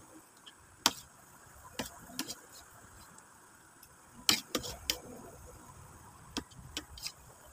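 Close-up eating sounds of chewing squid in adobo: about ten sharp, wet mouth clicks and smacks at irregular intervals, loudest about a second in and just past the middle.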